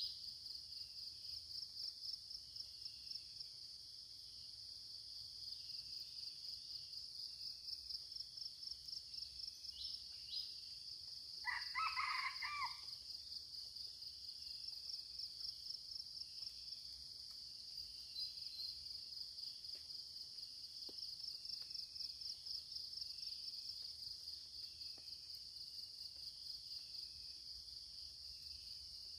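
A red junglefowl crows once, a short call a little over a second long, about twelve seconds in. Under it, a high, rapidly pulsing insect chorus runs steadily throughout.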